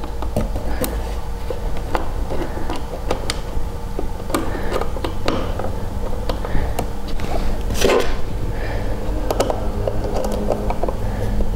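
Small clicks, taps and scrapes of a plastic Digitrax LNWI module being handled and worked onto screws in a wooden panel, with a louder knock about eight seconds in, over a steady low hum.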